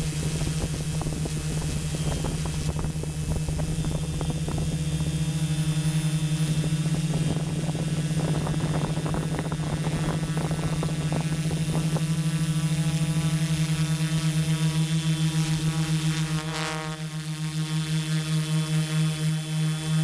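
Tarot Iron Man 650 multirotor's Turnigy Multistar 4822 brushless motors and propellers humming steadily, heard from the camera on board, the motor tones beating against each other in an even pulse. The pitch shifts and dips briefly near the end as the motor speeds change.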